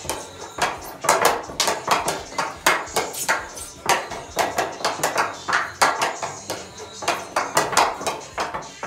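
Hockey stick blade tapping a golf ball back and forth on carpet: quick, irregular sharp clicks, several a second.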